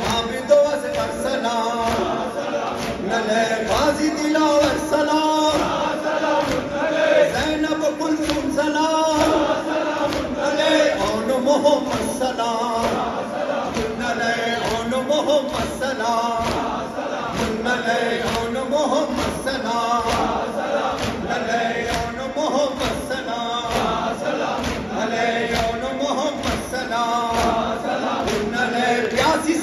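Shia nauha sung in Urdu by male reciters, with a large crowd of men singing the refrain in unison, over steady rhythmic beats of hands striking chests (matam).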